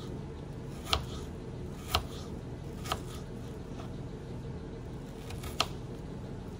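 A kitchen knife chopping onion on a cutting board: four sharp strokes on the board, three about a second apart, then one more after a pause of nearly three seconds.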